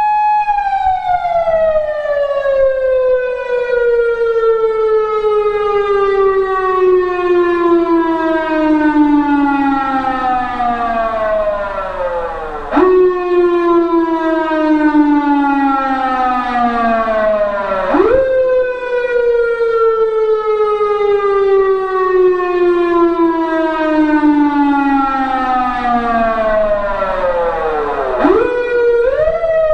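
PATLITE SAP-50 electronic siren amplifier sounding a loud motor-siren style tone. The pitch is held high, then winds down slowly for about twelve seconds. It is pushed quickly back up about thirteen and eighteen seconds in and again near the end, each time sliding slowly down again.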